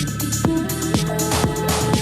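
Progressive house music. A four-on-the-floor kick drum hits about twice a second under held synth notes, and a short noise swell comes in near the end.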